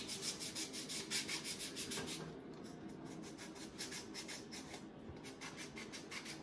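Sandpaper rubbed by hand in quick back-and-forth strokes along the painted edge of a small wooden block, about five strokes a second, distressing the paint. The strokes grow fainter after about two seconds.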